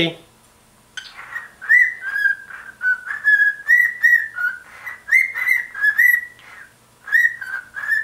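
Male cockatiel whistling its song: a run of short, clear whistled notes hovering around one pitch, slurring up and down. It starts about a second in, breaks off briefly near the end, then goes on.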